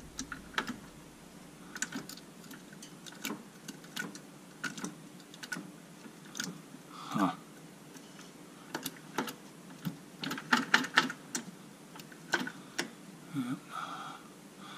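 Irregular metallic clicks and clacks from an Aussie lunchbox locker in a Dana 35 rear differential as the ring gear and carrier are turned and rocked by hand with the cover off. The locker is malfunctioning after an improper install, with its cross shaft shifting side to side in the carrier.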